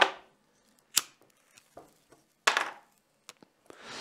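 A few sharp, irregular taps and knocks of sneakers on a tiled floor, with one short scuff partway through. Near the end an even outdoor background hiss comes in.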